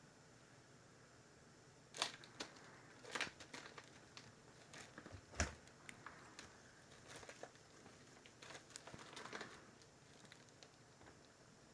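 Kitten at play: scattered light taps, scratches and rustles, with one louder knock about five seconds in.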